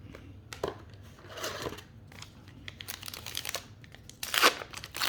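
Flesh and Blood Uprising booster pack wrapper crinkling and being torn open, a run of crackles with the loudest rip about four seconds in; the pack opens easily.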